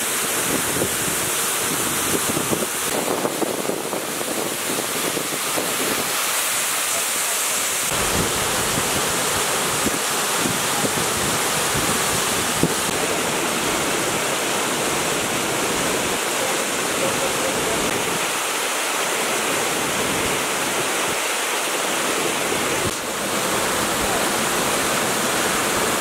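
Steady rushing roar of a waterfall, water dropping about 15 metres onto rocks and spilling over boulders.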